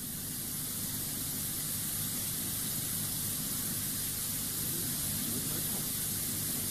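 Steady hiss with a low hum beneath it: the background noise of the recorded audio track during a pause with no speech.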